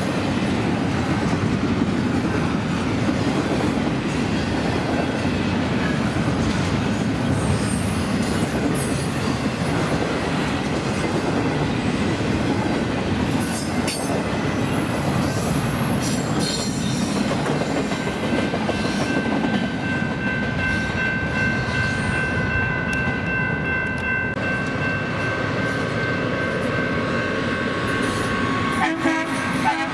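Double-stack intermodal well cars rolling past at speed: a steady rumble with wheel clatter over the rail joints. About two-thirds of the way through, several steady high tones join the rumble.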